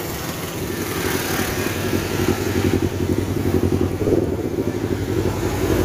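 Motorcycle engine running steadily while riding, with road and air noise.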